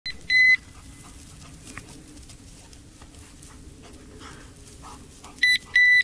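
Electronic beeper on a running bird dog's collar sounding short, high, single-pitched beeps: a quick one at the very start, one about a third of a second in, and two close together near the end. Low, steady outdoor noise lies between the beeps.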